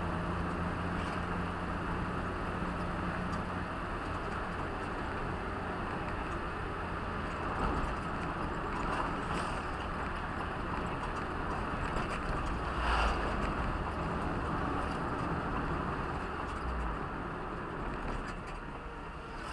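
Steady in-cabin driving noise from a road vehicle at speed: low engine hum and tyre rumble on the road, with a couple of brief knocks from bumps around the middle.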